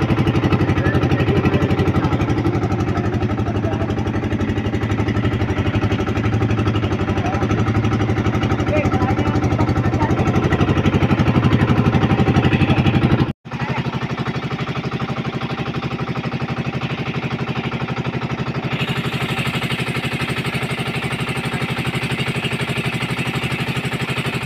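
Fishing boat's engine running steadily while the boat travels slowly. The sound breaks off for an instant about halfway through and comes back with less low rumble.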